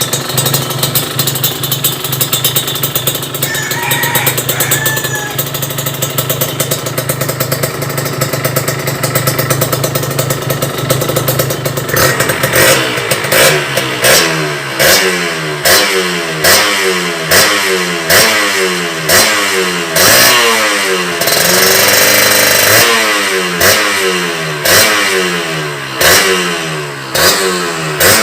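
Kawasaki KRR 150's two-stroke single-cylinder engine running through an RF Pipe aftermarket exhaust. It idles steadily for about twelve seconds, then the throttle is blipped repeatedly, about once a second, each rev rising and falling back. One longer rev is held high about two-thirds of the way through.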